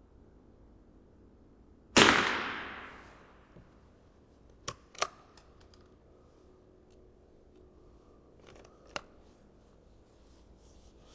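.22 LR rifle firing a single shot about two seconds in, echoing as it fades over more than a second, followed by a few sharp mechanical clicks, two close together and one a few seconds later.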